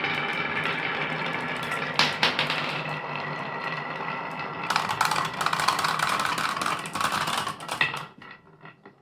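Marbles rolling and clattering through a wooden marble run over a steady hum. A quick flurry of clicks starts about five seconds in and dies away near the end.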